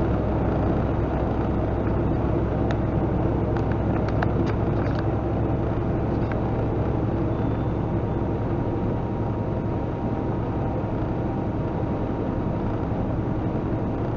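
A semi truck's diesel engine runs steadily at highway speed, heard from inside the cab with road and tyre noise. A few light clicks come a few seconds in.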